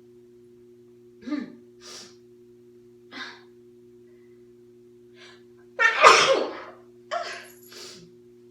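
A woman sneezing: several short breathy gasps, then one loud sneeze about six seconds in, followed by a couple of short breaths.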